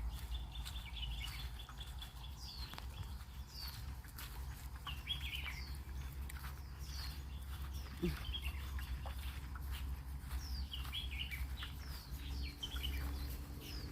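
Wild birds calling: short, high, falling chirps repeated about once a second, with a few quicker twittering notes between them, over a steady low rumble.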